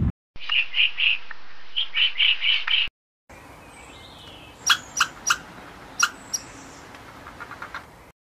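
High, bird-like chirps in two stretches. First comes a run of about seven quick chirps. After a brief silent gap come a handful of sharp single chirps over faint hiss, with a quick flurry of softer ones near the end.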